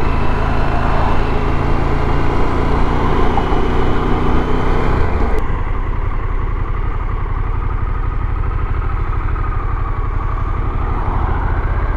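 Harley-Davidson Pan America's V-twin engine running under wind and road noise as the motorcycle rides at speed. About five seconds in the wind hiss drops away and the engine settles to a low, pulsing idle with the bike stopped.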